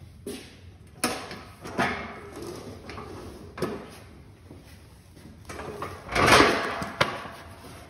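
Scattered knocks and scrapes from a paintbrush being handled, the loudest a clatter about six seconds in as the brush is dipped into a paint pail and worked against its rim.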